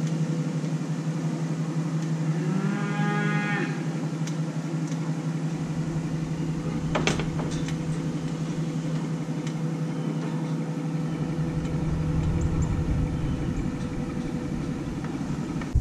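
A cow moos once, a call lasting about a second, a few seconds in, over the steady hum of the pickup's engine as it backs the stock trailer up to the cattle chute. A single sharp click about seven seconds in.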